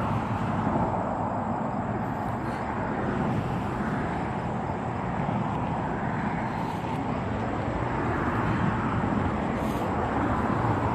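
Steady road traffic noise, an even rumble with no single vehicle standing out.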